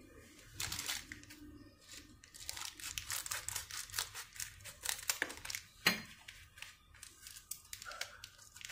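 Clear plastic packaging bag crinkling and crackling as it is handled and cut open with scissors, in an irregular string of sharp crackles.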